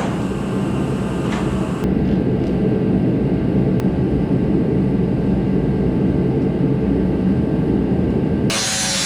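Steady low roar of a forced-air shop heater running. Near the end a loud, harsh hiss cuts in suddenly.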